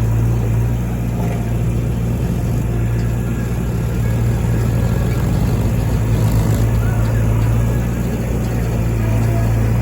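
Heavy diesel engine running with a steady deep hum, its note wavering and unsettled for a few seconds in the middle before settling again.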